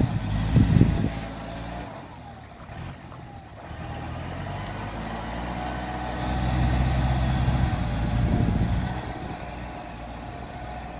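Diesel engine of a Kubota walking tractor running, quieter about two seconds in and louder again past the middle, with a few low thumps about a second in.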